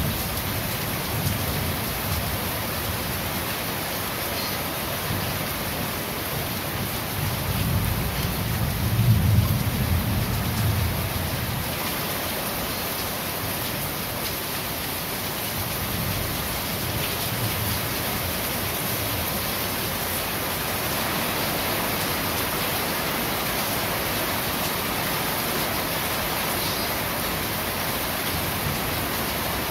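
Steady rain falling on corrugated roofs, an even hiss. A low rumble of thunder swells and fades about eight to ten seconds in.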